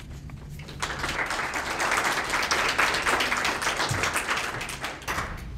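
Audience applauding, starting about a second in, swelling and then dying away near the end.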